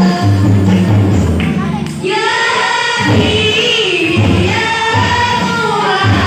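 Sholawat singing with a hadroh ensemble: voices carry a devotional melody over a repeating pattern of deep frame-drum beats.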